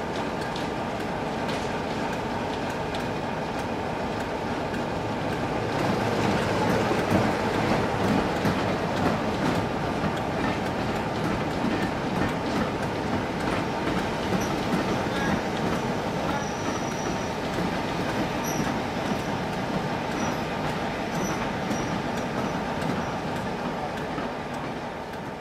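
Heritage diesel locomotive hauling a train past, its engine running steadily with rail noise. It grows louder about six seconds in and fades away near the end.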